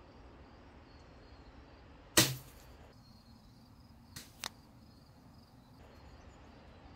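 Daisy Red Ryder spring-air BB gun firing once: a single sharp pop about two seconds in. Two faint ticks follow about two seconds later.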